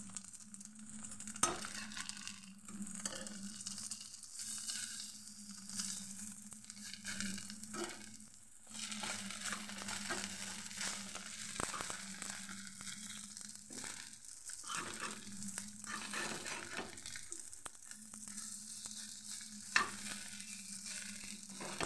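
Batter-coated pumpkin-flower fritters sizzling as they fry in a little oil in a pan, with a metal spatula scraping and clicking against the pan as they are turned. Two sharper clicks stand out, about a second and a half in and near the end.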